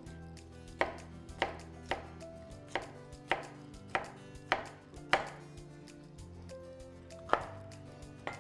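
Chef's knife dicing bell pepper on a cutting board: about ten sharp strikes of the blade against the board, roughly two a second, then a pause of about two seconds before two more cuts.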